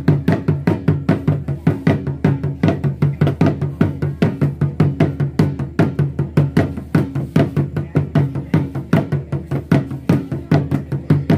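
Traditional drum music for the Mandar Pattu'du' dance: fast, even drum strokes, about four a second, over a steady low ringing tone.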